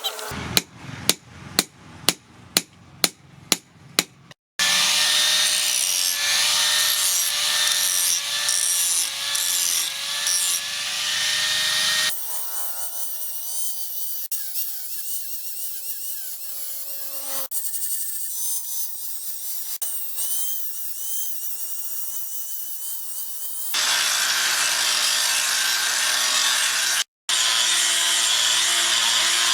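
Steel being worked by hand and machine: about ten quick, evenly spaced hammer blows, a little over two a second, then a power tool cutting or grinding steel in long steady runs. Partway through it drops to a quieter, lighter grind, then turns loud again near the end.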